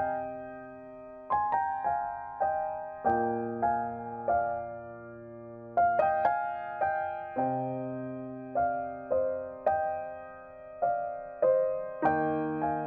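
Slow, gentle solo piano music: single notes struck one after another over held low chords, each note fading away.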